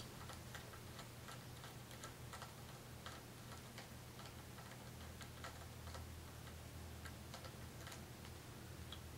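Faint, irregular light clicks of a hex-bit screwdriver turning a screw out of the metal top plate of a Manfrotto 502 fluid video head.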